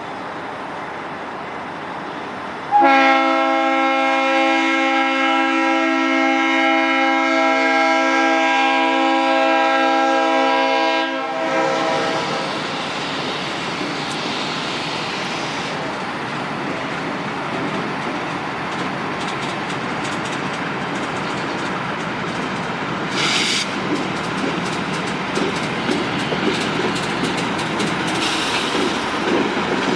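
Leslie RS5T five-chime air horn on a former Conrail diesel locomotive sounding one long chord of several tones for about eight seconds. The horn cuts off abruptly, and the freight cars roll by with steady wheel clatter over the rail joints and a brief high screech about two-thirds of the way through.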